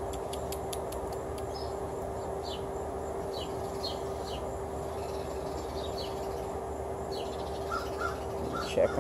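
Birds chirping: a string of short, falling chirps repeated every half second or so, over a steady low hum.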